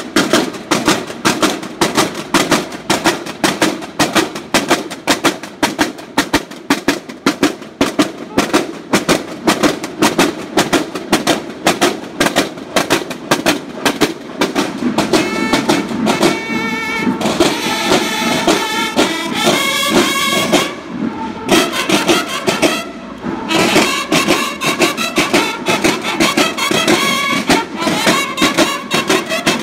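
A Mexican banda de guerra marching: snare drums beat a steady march cadence, and bugles join in with held calls about halfway through, over the continuing drums.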